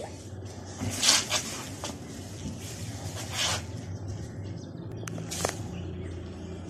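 Plastic bag rustling in a few short bursts, over a faint steady low hum.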